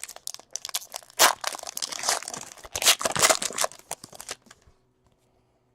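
Trading-card pack wrapper and cards being handled: irregular crinkling and crackling, the sound of a pack being torn open and its cards pulled out. It stops about four and a half seconds in.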